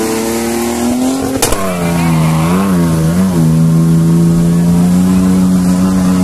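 Off-road 4x4 race vehicle's engine running hard at high revs as it ploughs through mud and water. A sharp crack comes about a second and a half in, the revs dip and then rise and fall twice, and the engine then holds a steady high note.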